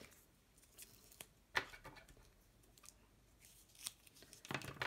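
Faint paper-craft handling: light taps and rustles of small card pieces being set down and moved on a tabletop, with a sharper click about a second and a half in and a short cluster of clicks near the end.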